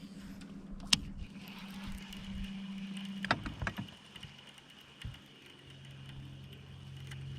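A low, steady engine hum that drops to a lower pitch partway through, with a sharp click about a second in and a few knocks a little after three seconds.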